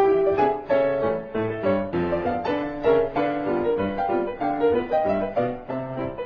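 Piano music, a steady run of notes over chords, as a soundtrack.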